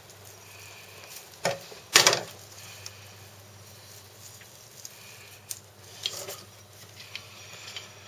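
Close handling noise of hands working with plastic anti-bird netting wrapped around a held snake. There are two sharp rustles about one and a half and two seconds in, the second the loudest, then a few softer ones later.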